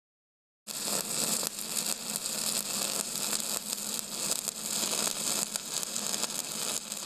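A steady crackling hiss over a faint low hum, starting abruptly under a second in and fading out at the very end.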